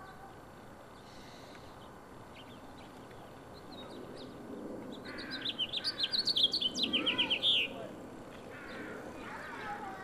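Male house finch singing: one warbling song of quick, varied high notes about five seconds in, ending in a fast run of repeated notes. A few softer notes come before and after it.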